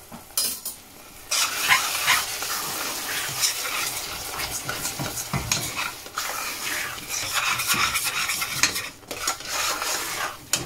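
Metal spoon stirring and scraping a thick onion-tomato curry paste around a stainless steel saucepan, with small clicks of spoon against pan and the spices frying in the oil. The stirring starts about a second in.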